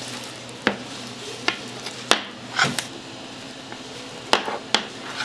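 Kitchen clatter: about half a dozen sharp clinks and knocks of kitchenware being handled, over a steady machine hum.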